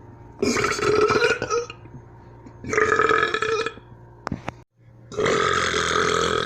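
A person burping three times in a row, each burp about a second long, the last running to the end. A couple of short clicks come between the second and third burps.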